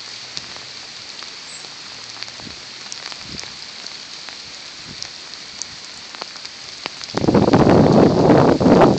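Steady rain falling, with scattered drop ticks. About seven seconds in, a much louder rushing noise begins and lasts to the end.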